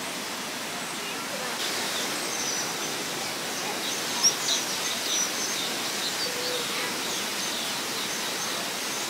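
Small birds chirping in quick, high, scattered calls over a steady rush of running water, with one sharper, louder chirp about four seconds in.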